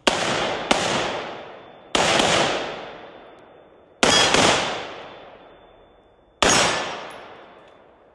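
Six pistol shots at an uneven pace, two of them in quick pairs, each sharp crack trailing off in a long echo.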